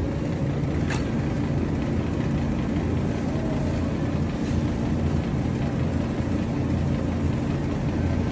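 Steady low rumble and hum of a supermarket aisle, with one short click about a second in.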